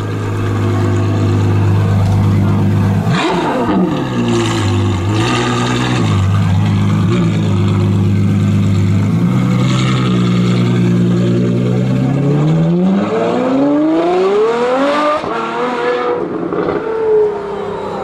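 Ferrari F12 Berlinetta's 6.3-litre V12, in Novitec Rosso N-Largo form, idling steadily with a quick throttle blip about three seconds in. Later the revs climb steadily for two to three seconds, then drop away.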